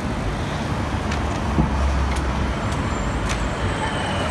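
Busy city road traffic: cars, vans and buses running past with a steady low engine rumble that swells about two seconds in. Near the end a single-decker bus draws up alongside, its engine whine coming in.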